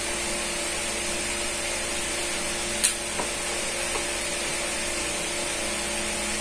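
A steady machine hum and hiss, like a small motor running. Almost three seconds in, a spoon clinks sharply on a bowl, followed by two fainter taps.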